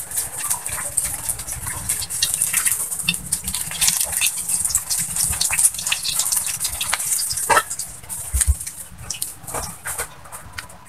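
Hot oil sizzling and crackling in a wok over a wood fire as fried banana pulp drains in a wire strainer, with light clicks and scrapes of a spatula against the strainer.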